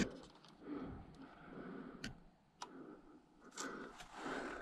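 Faint footsteps and scuffing on a mine tunnel floor, with a few sharp clicks in between.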